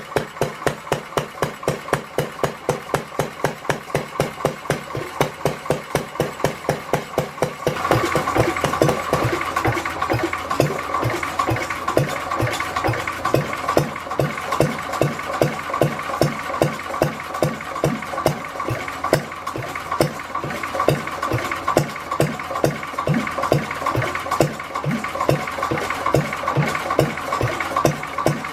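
Single-cylinder Lister D 1.5 HP stationary engine running after its repair, with an even beat of about four or five exhaust pulses a second. About eight seconds in the sound gets louder and noisier, and the beat carries on.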